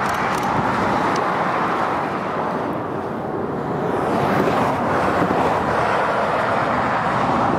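Steady rush of passing road traffic. It eases off about three seconds in and swells again a second or so later.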